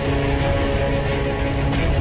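Background music with sustained tones over a heavy, steady low end.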